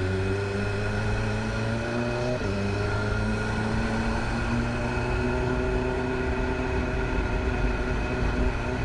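BMW S1000RR's inline-four engine pulling in gear while riding, its pitch climbing slowly. It drops suddenly about two and a half seconds in as the bike shifts up, then holds and slowly rises again.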